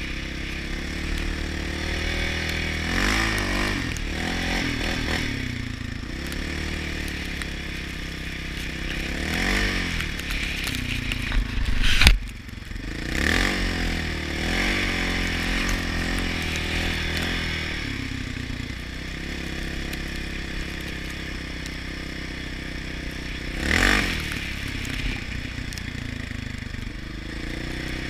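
Yamaha Raptor 700R quad's single-cylinder four-stroke engine running as the quad rides along, its pitch rising and falling with the throttle several times. A sharp knock about twelve seconds in is the loudest moment.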